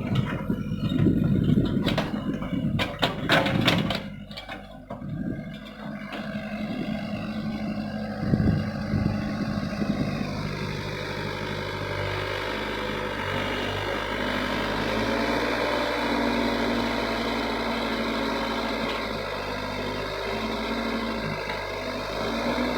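Hyundai excavator's diesel engine running, with a cluster of sharp clanks and knocks in the first four seconds, then steady running whose pitch shifts about ten and again about fifteen seconds in.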